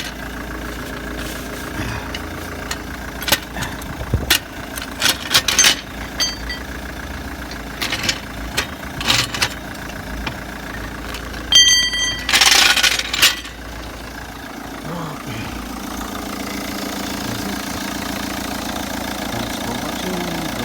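Vauxhall Astra 1.7 turbo diesel engine idling steadily, with a series of sharp metallic clanks from a trolley jack being lowered and pulled out. About two-thirds of the way through the clanks stop and the running hum grows steadier and slightly louder.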